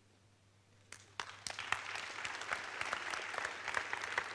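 Audience applause: after a brief hush, many hands start clapping about a second in and keep going steadily.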